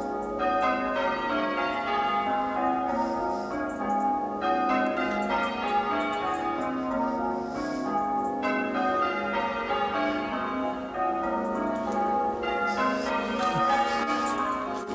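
Church bells ringing a peal of change ringing, heard from outside the tower: a steady, unbroken stream of overlapping bell strikes.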